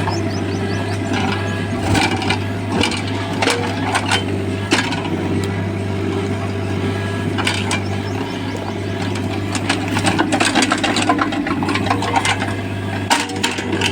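Backhoe loader's diesel engine running steadily, with scattered knocks, clinks and scrapes over it, typical of the machine working soil and stones at a trench.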